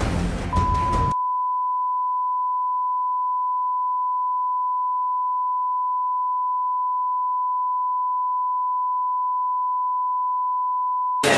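Steady test-tone beep, a single pure tone near 1 kHz held unbroken for about ten seconds, the tone that goes with TV colour bars and signals a lost broadcast signal. The scene's background sound cuts off about a second in, and the tone stops just before the end.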